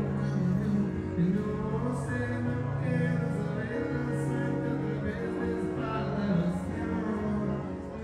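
Live band music with singing, played on stage during a sound check.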